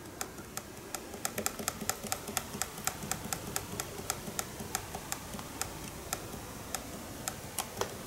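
Emerson RK5000 kitchen timer radio ticking as its countdown timer is run down fast, one sharp click per minute step: about four to five a second at first, slowing toward the end as zero nears.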